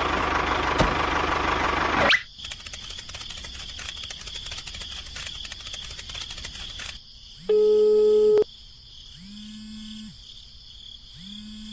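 Telephone calling tone: one-second pitched beeps repeating about every two seconds in the second half, over a faint, fast high chirring like crickets. The first two seconds hold a loud, noisy sound that cuts off suddenly.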